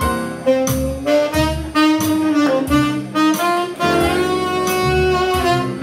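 Saxophone playing a jazz blues solo of moving and held notes, with electric keyboard accompaniment underneath.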